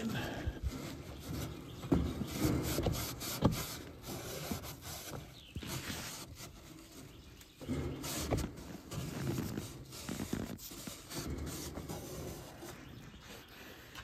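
Irregular rubbing and rustling of wiping out the inside of an air handler cabinet with a rag or towel, with a few sharp knocks about two and three and a half seconds in.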